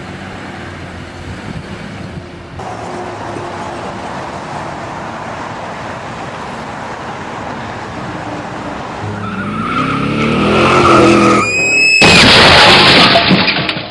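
A car driving with steady road noise, then its engine rising and tyres squealing in a skid from about ten seconds in. A loud crash follows about twelve seconds in and is the loudest part.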